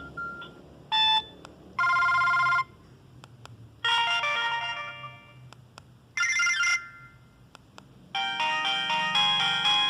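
Samsung SGH-C165 mobile phone playing a run of short electronic alert tones, four brief jingles with pauses between them. A longer multi-note ringtone melody starts about eight seconds in.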